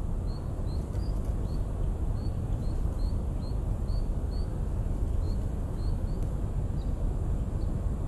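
A small songbird gives a run of short, high, slightly rising chirps, about two or three a second, stopping about six seconds in, over a louder steady low rumble.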